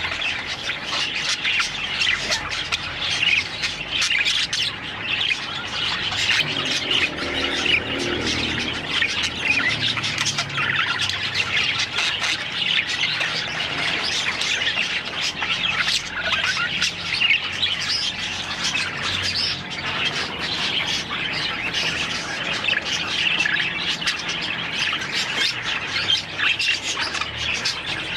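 Many budgerigars chattering, chirping and squawking together without a pause, the steady din of a budgie aviary.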